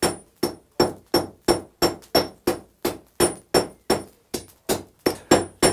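Blacksmith's hand hammer striking a red-hot iron rod on a square block anvil in a steady rhythm, about three blows a second, each with a short metallic ring, drawing out the shank of a hand-forged nail.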